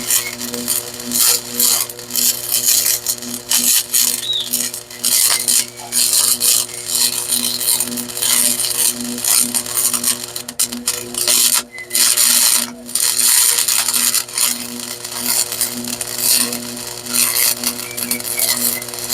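Wire-feed (MIG) welding arc crackling and sputtering steadily as a bead is laid on the shock mount, with brief breaks where the arc stops about twelve seconds in.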